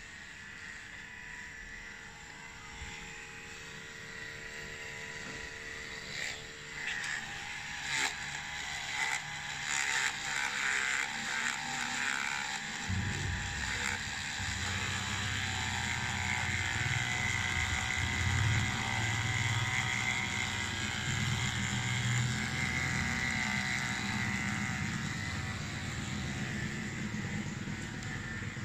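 Portable camping water heater on test, its small battery-powered DC water pump running and pushing water through. A few clicks and rattles come first, then a steady low hum comes in suddenly about halfway and keeps going.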